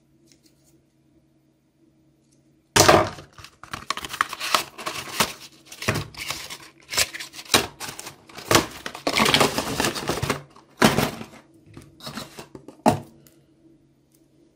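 Cardboard phone packaging and plastic wrap being handled: a dense run of rustling, crinkling and knocks that starts about three seconds in and stops about a second and a half before the end.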